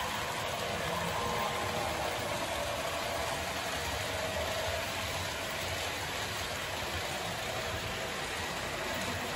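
Model trains running on the layout's track: a steady rolling rumble of wheels on rails with a faint, wavering motor whine.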